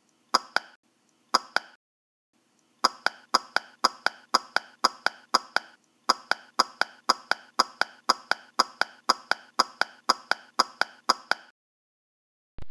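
Added tapping sound effect: quick, evenly spaced, ringing taps, two short pairs, then after a brief pause a steady run of about three a second that stops well before the end. A springy boing sound effect starts right at the end.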